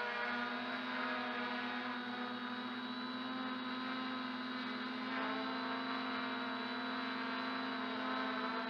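MJX Bugs 2W quadcopter's brushless motors and propellers whining steadily in flight, heard close up from a camera mounted beneath it; the pitch shifts slightly about five seconds in.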